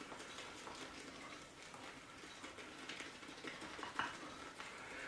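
Shaving brush whipping shave cream into lather in a bowl: a faint, continuous patter of small wet clicks, with one slightly louder tick about four seconds in.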